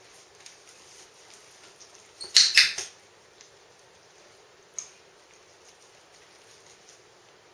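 Dog licking and eating treats from a hand, with soft mouth clicks, a loud burst of several smacking clicks about two and a half seconds in, and one sharp click near five seconds.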